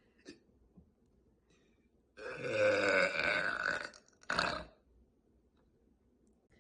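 A woman's long, deep burp, starting about two seconds in and lasting nearly two seconds, its pitch falling slightly. About half a second after it ends there is one short, sharp sound.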